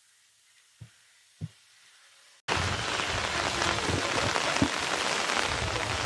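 Rain falling steadily, starting abruptly about two and a half seconds in after near silence broken by two soft thumps.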